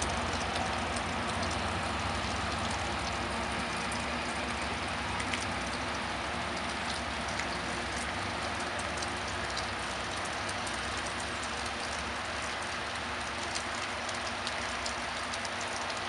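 Steady rain pattering, with the low rumble of a bi-level commuter train fading as it pulls away.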